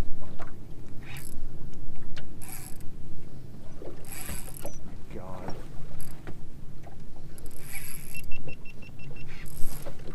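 Fishing boat's motor running with a steady low rumble, with several short bursts of hiss over it and a quick run of about eight ticks a second near the end.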